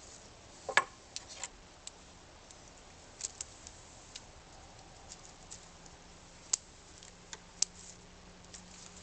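Pruning cutters snipping branches off a guava bonsai: a scattered series of sharp clicks and snaps, the loudest about a second in.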